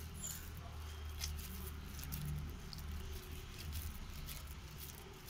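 Soft, wet pats and squishes of water-soaked bread being pressed and shaped between the palms, as faint irregular clicks over a low steady hum.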